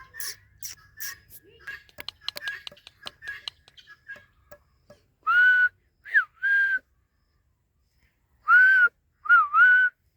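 Indian ringneck parrot whistling: soft clicks and faint chirps, then two loud groups of three clear whistled notes about five and eight and a half seconds in. The later notes dip and rise in pitch.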